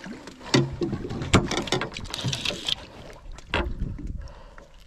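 Water splashing as a hooked longtail tuna thrashes at the surface beside a boat, mixed with sharp knocks and thumps, the loudest about a second and a half in.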